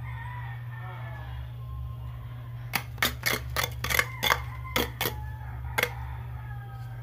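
About ten sharp knocks or taps in quick, irregular succession over about three seconds, starting near the middle, against a steady low hum.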